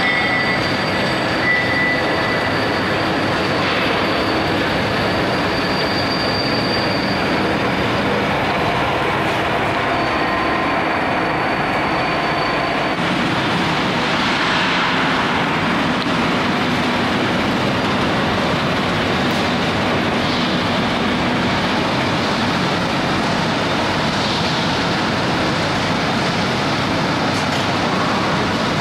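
Steady machine-shop noise of a CNC spiral bevel gear cutting machine, its cutter head cutting a gear under coolant spray. High thin whining tones ride on it until about halfway through, then fade, leaving an even rushing noise.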